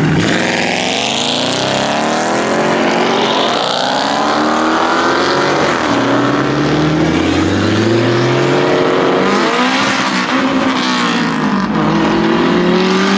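A car engine at full throttle, accelerating hard through the gears: its pitch climbs and drops back at each of several gear changes.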